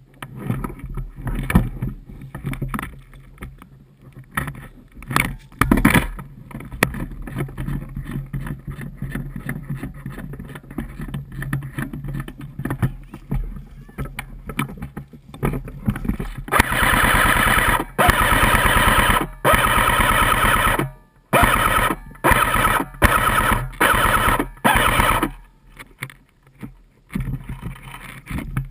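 Rustling and scraping in dry grass and brush for the first half. Then an airsoft electric rifle fires about eight full-auto bursts in quick succession, the first three longer, each a fast even rattle of the motor-driven gearbox.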